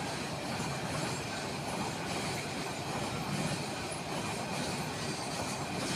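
Container train's flat wagons rolling past on the near track: a steady rumble of wheels on rails with a faint wheel squeal.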